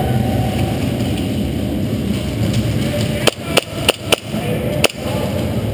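Airsoft gun firing five sharp, single shots at uneven spacing over about a second and a half, over a steady low rumble of background noise.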